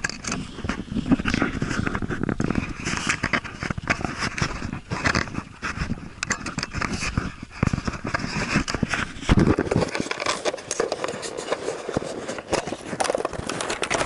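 Handling noise of the camera: irregular rubbing, scraping and knocking against the microphone, with a low rumble that drops away about ten seconds in.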